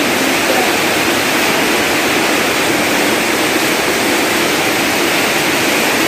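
Strong wind and rain, a steady loud rushing noise with no let-up.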